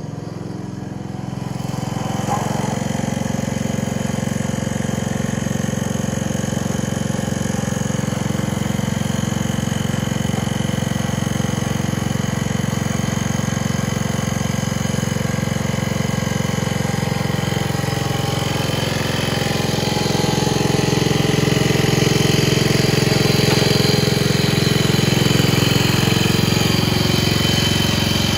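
The engine of a 1970 John Deere 140 H3 garden tractor running steadily, picking up speed and getting louder about two-thirds of the way through.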